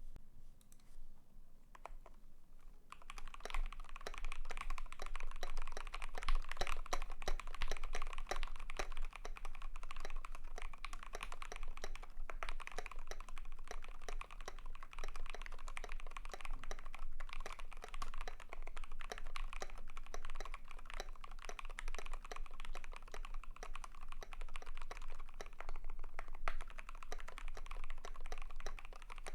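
Typing on a custom KBD75 v3.1 mechanical keyboard with a brass plate, lubed SP Star Meteor Orange switches and MT3-profile keycaps. A few scattered keystrokes give way, about three seconds in, to fast, continuous typing.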